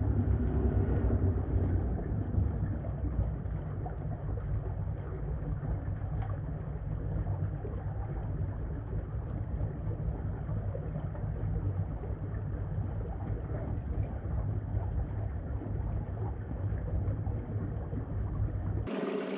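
Steady rushing of water running over a rock slab in a small waterfall, with a deep rumble and a dull, muffled sound. Near the end it cuts abruptly to a brighter, fuller sound.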